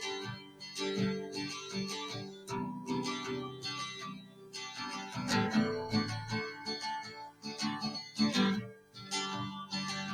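Background music: plucked and strummed acoustic guitar.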